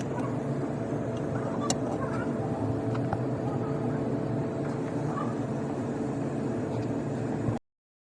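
Engine running steadily, with a steady whine over a low hum and a few faint clicks, cutting off suddenly near the end.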